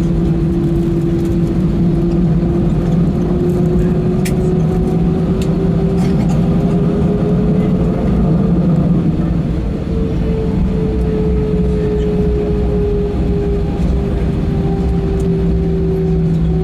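Airbus A320's CFM56-5B turbofan engines running at taxi power, heard inside the cabin as a loud, steady drone. Their pitch rises slowly over about eight seconds, then eases back as thrust is reduced.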